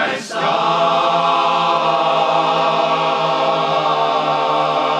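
Barbershop chorus singing a cappella in close harmony, holding one long, steady chord on the word "star".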